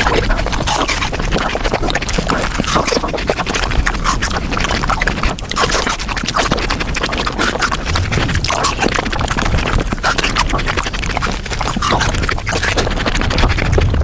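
Close-miked eating of a mango dessert sped up about fivefold: a dense, continuous rush of wet chewing, lip-smacking and slurping clicks.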